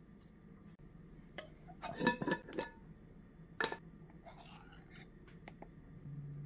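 Metal spoon clinking against a glass spice jar: a quick cluster of ringing clinks about two seconds in, and a single one a little later.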